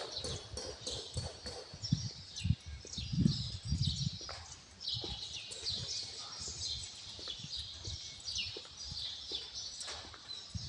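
A chorus of many small animals calling in short, high, falling notes, densely overlapping. Low thumps sound through the first four seconds.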